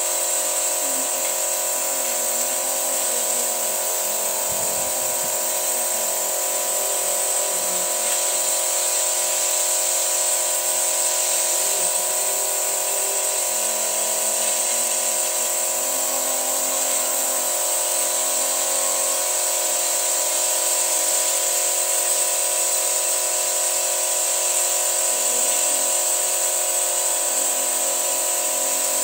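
A Toyota pickup's petrol engine running steadily during a carbon-cleaner engine flush, with a steady high hiss over a constant whine.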